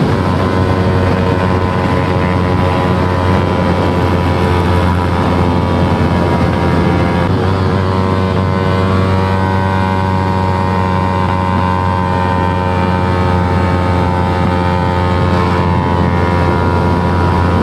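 Yamaha R3's 321 cc parallel-twin engine running at speed, its pitch held nearly steady throughout, with a steady rush of wind noise.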